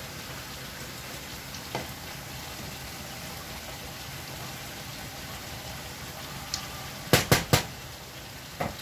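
A pot of bottle gourd (opo) and ground beef stew simmering on the stove, a steady hiss of bubbling. Three quick, sharp knocks stand out near the end.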